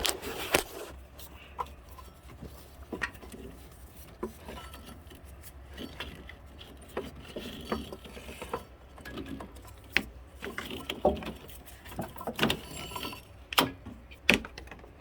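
Scattered, irregular clinks and knocks of hand tools and engine parts being handled during timing-belt and water-pump work, a few of them sharper, over a steady low hum.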